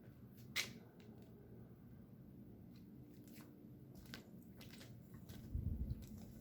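Faint, steady low hum of factory machinery from the neighbouring plant, with a steady tone in it. Over it come a few sharp clicks, the loudest about half a second in, and a low bump near the end, as something is handled close to the microphone.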